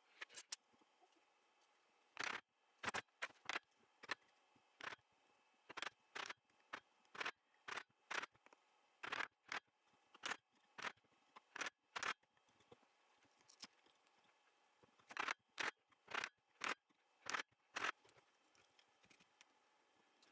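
A hand tool working hardwood: about twenty short scraping strokes in irregular clusters, with a few pauses between them.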